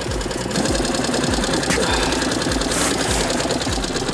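Carp reel's drag clicking rapidly and evenly as a strong carp pulls line off the spool.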